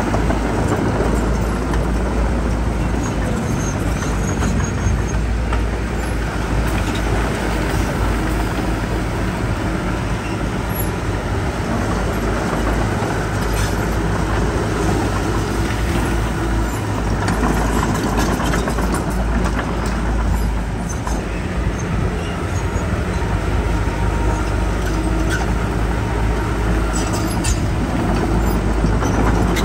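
Heavy earthmoving machinery at work, a bulldozer and dump trucks with their diesel engines running steadily, with a few short clanks.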